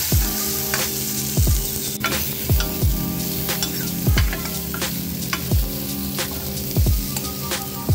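Chayote strips sizzling in oil in a metal kadai as a metal ladle stirs and scrapes them against the pan. Under it runs background music with sustained chords and a deep booming beat about once a second, the loudest thing heard.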